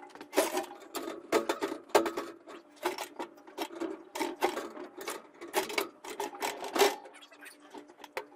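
Irregular metallic clattering and rattling of a flexible metal chimney liner being bent and worked down into the flue collar of a wood stove insert, over a steady low hum.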